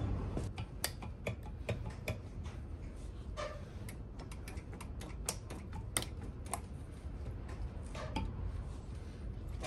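Scattered light clicks and taps at irregular intervals from hands working on a disassembled Honda CB360T engine, over a low steady rumble.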